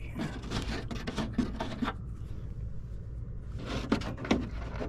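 Small clicks, taps and rubbing of parts being handled and pushed into place by hand, denser in the first two seconds and again near the end, over a steady low hum.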